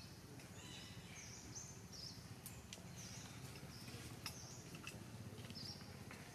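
Faint, high-pitched bird chirps repeating over a low steady outdoor hum, with a few sharp clicks, the loudest a little past the middle.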